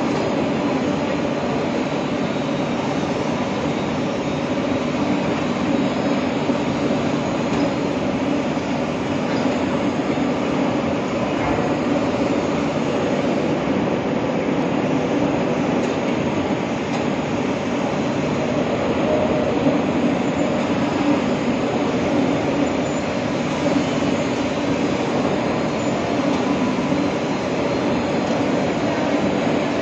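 Steady machinery noise: a constant drone with a low hum, unbroken and even in level.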